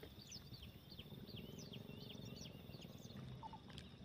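A bird calling: a quick run of short, high chirps, about four a second, that stops about three seconds in.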